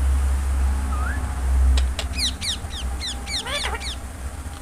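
Ring-necked parakeet calling: a quick run of short, falling chirps starting about two seconds in, over a loud low rumble that eases off about halfway through.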